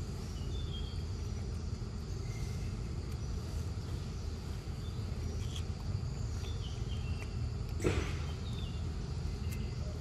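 Forest background: a steady low rumble with scattered brief high chirps, and one sharp crackle about eight seconds in.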